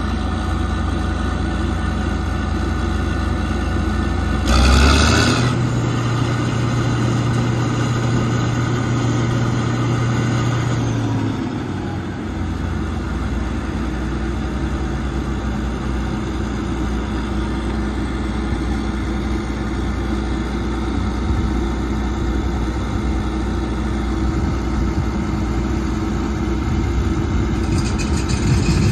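John Deere 9650STS combine's diesel engine and threshing machinery running steadily while harvesting soybeans. There is a brief louder rush of noise about four and a half seconds in, then a steady hum for several seconds.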